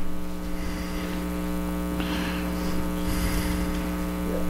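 Steady electrical hum: a low buzz with a ladder of even overtones that holds unchanged.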